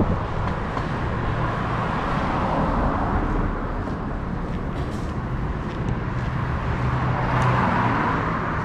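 Street traffic: cars passing with a steady rumble of road noise, one vehicle growing louder near the end.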